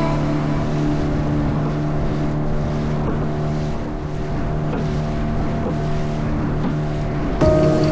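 Boat engine running steadily, with wind on the microphone and water noise; the sound changes abruptly near the end.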